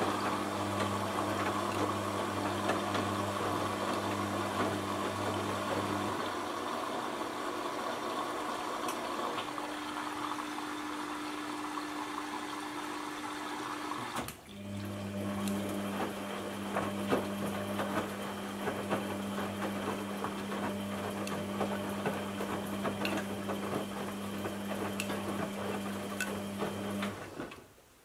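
Aldi front-load washing machine running with water moving through it and a steady mechanical hum. The hum breaks off and changes partway through, pauses for a moment about halfway, and stops just before the end.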